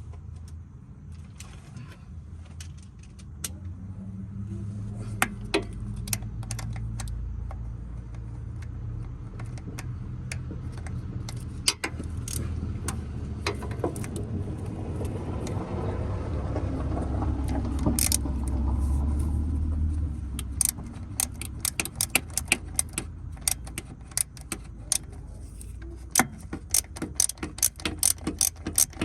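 Hand socket ratchet clicking as the starter's mounting bolts are tightened, with metal tools clinking. The clicks come in fast, even runs toward the end. A low rumble runs through the middle.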